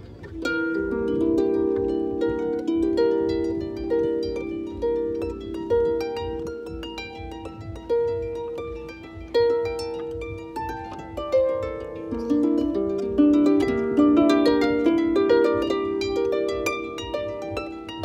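Lever harp played by hand: a plucked melody over lower notes that keep ringing, each note starting sharply and fading away.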